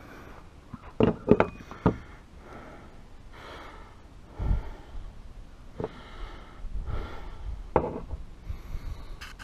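Sharp knocks and clunks from work at an open truck engine bay: several in quick succession about a second in, a dull thump past the middle, and a few single clicks later. A person breathes between them.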